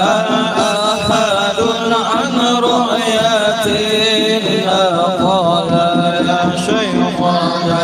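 Group of male voices chanting an Arabic devotional song together over a microphone, the melody moving in long, wavering phrases.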